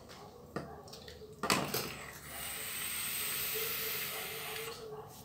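Vape atomizer being drawn on: a faint click, then a sharp click, then about three seconds of airy hiss with a light crackle as air is pulled through while the staggered fused Clapton coil fires and vaporises the liquid.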